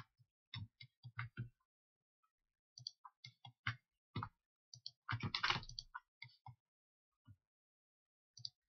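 Scattered clicks of a computer mouse and keyboard, with a denser, louder run of clicks about five seconds in.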